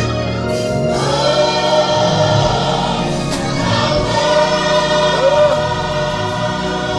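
Gospel choir music: a choir singing long, held notes.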